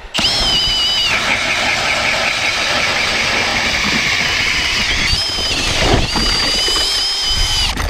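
Milwaukee M18 Fuel cordless drill spinning an ice auger to bore a hole through lake ice. It starts with a high motor whine, which drops in pitch about a second in as the auger bites into the ice and grinds through it. About five seconds in the whine rises again, then it stops shortly before the end.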